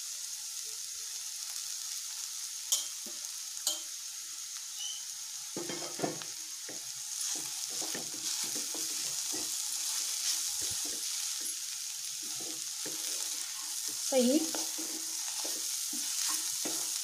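Chopped urad (black gram) leaves and onion sizzling in hot oil in a kadhai, with a steady hiss throughout. A couple of sharp clicks come early, then a wooden spatula stirs and scrapes the greens around the pan, over and over, from about a third of the way in.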